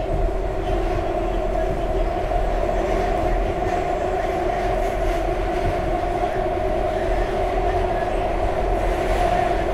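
A SEPTA Market-Frankford Line train heard from inside the car while it runs at steady speed: a constant rumble of wheels on rail with a steady hum in two tones.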